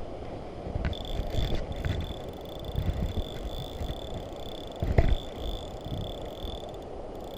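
Steady rushing of river water, with uneven low thumps and a few sharp clicks, and a faint steady high-pitched whine that starts about a second in.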